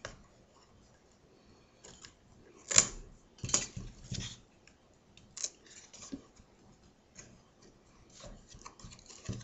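Scissors snipping through flat basket reed stakes, and the reed creaking and cracking as stakes are bent over and tucked: a scattered run of sharp clicks and snaps, the loudest about three seconds in. The reed is starting to dry out, which makes it crack.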